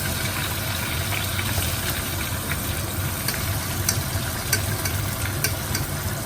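Chicken leg pieces frying in hot oil, a steady sizzle with scattered small pops, over a low steady hum.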